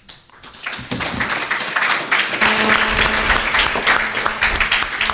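Audience applauding at the end of a talk, building up over the first second or two and thinning out near the end.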